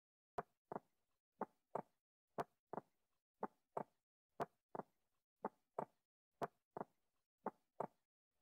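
Heartbeat sound: paired lub-dub thumps about once a second, eight beats in all, with dead silence between them.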